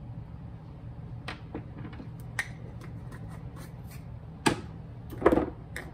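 Spice jars being handled on a countertop: scattered light clicks and knocks of plastic lids and jars, with the loudest knock about five seconds in.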